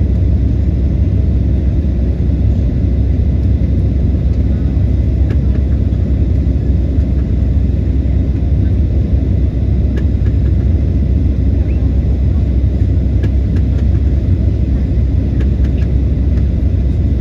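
Steady low rumble of an airliner's cabin noise, with a few faint clicks.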